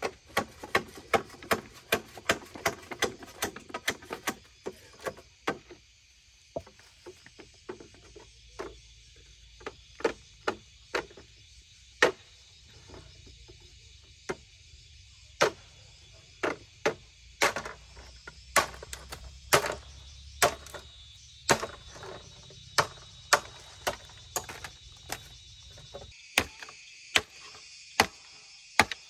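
Repeated sharp chopping blows of a hand tool on wood or bamboo: a quick run of about three or four strikes a second at first, then slower, uneven single strikes.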